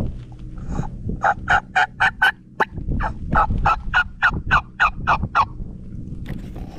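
Hunter's diaphragm mouth call imitating a wild turkey, blown through cupped hands. It gives a run of about five sharp notes, a short pause, then about ten more, roughly four a second.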